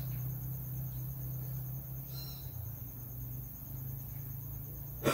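Quiet background: a faint, evenly pulsing high insect trill over a steady low hum.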